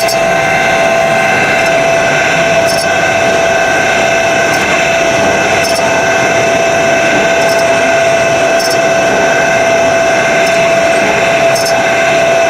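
CNC serrated-blade grinding machine running in its automatic cycle: a loud, steady mechanical whine with several held tones, with faint light ticks about every second and a half.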